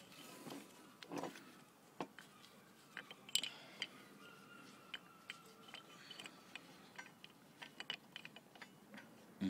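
Faint, scattered clicks and light metallic clinks as motorcycle brake pads and small caliper parts are handled.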